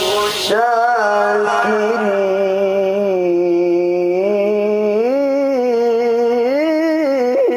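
A man's voice reciting the Qur'an in melodic tajwid style, holding one long ornamented note with a wavering melisma that climbs in pitch about five seconds in. There is a brief hiss at the very start.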